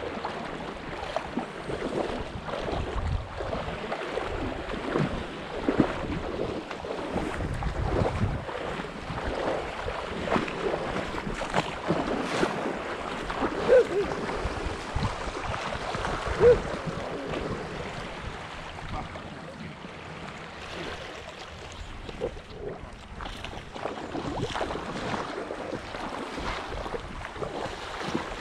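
Shallow seawater sloshing and lapping around a wader's legs, with wind buffeting the microphone. Two brief squeaks a couple of seconds apart come near the middle.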